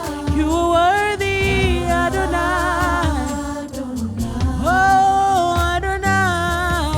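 Worship song with a sung vocal line of long held notes that glide between pitches, over a steady low instrumental backing.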